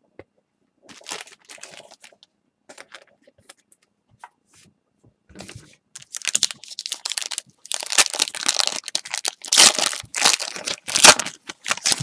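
Plastic wrapping of a trading-card pack torn open and crumpled by hand: a few soft crackles at first, then loud, dense crinkling and tearing through the second half.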